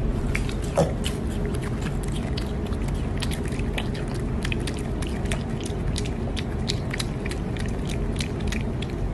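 Piglet chewing and smacking on a piece of food: a quick, irregular run of wet clicks, with one brief louder sound just under a second in.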